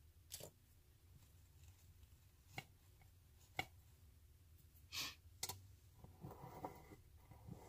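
Near silence with about five faint, scattered clicks and rustles of artificial flower stems being handled and tucked into an arrangement.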